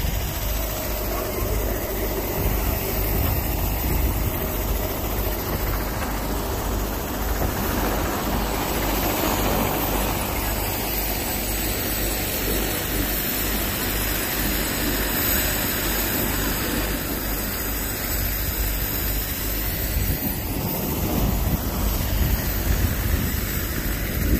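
Helicopter flying nearby: a steady rushing drone of rotor and turbine, with wind buffeting the microphone.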